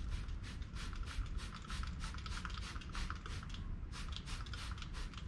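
Quick, uneven rubbing strokes of a pad or cloth scrubbing a plastic headlight lens, several strokes a second.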